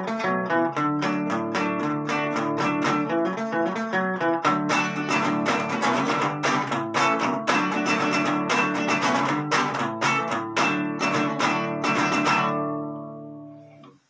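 Nylon-string classical guitar with a capo, strummed in quick, steady chords. The strumming stops about twelve seconds in and the last chord rings out and fades away.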